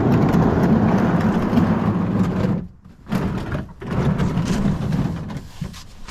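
A drain pan being dragged across the ground, scraping in three pushes: a long one at the start, a short one about three seconds in, and another after that.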